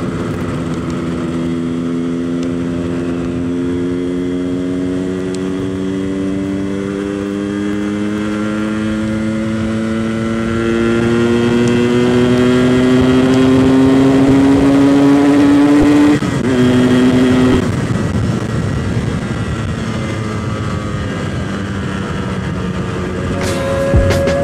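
Yamaha RX-King's 135 cc two-stroke single-cylinder engine through its stock exhaust, accelerating hard: the note climbs steadily for about sixteen seconds, then drops suddenly, holds a lower note for a moment, and fades into a rushing wind and road noise.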